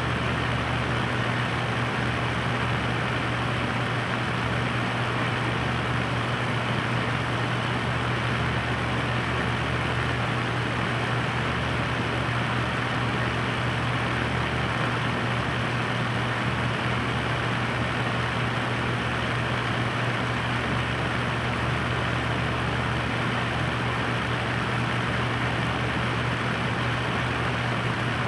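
Electric floor fan running steadily: an even rush of air over a low, constant motor hum.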